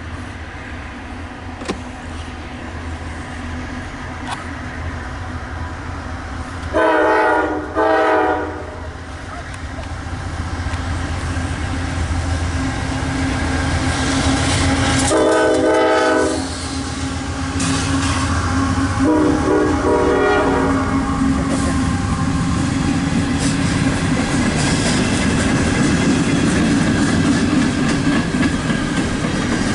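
Approaching diesel freight locomotives sounding a multi-tone air horn: two short blasts about seven seconds in, a longer blast around fifteen seconds, and another a few seconds later. Under the horn, the locomotives' engines rumble, growing louder as they near and pass. Empty coal hopper cars then roll by with the rhythmic clack of wheels over rail joints.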